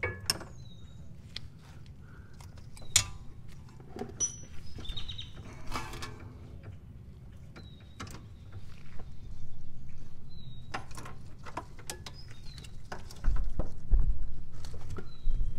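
Scattered clicks and clinks of a socket ratchet and metal parts being worked on a 13mm nut, with dull low thumps near the end.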